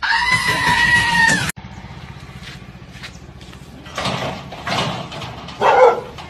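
A loud, held high squeal lasting about a second and a half, followed after a break by a dog barking several times, the last bark the loudest, near the end.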